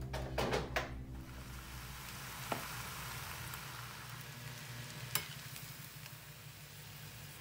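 Fried rice sizzling in a stainless steel pan while it is stirred with a metal spoon, with two sharp clinks of the spoon against the pan. A few knocks come in the first second.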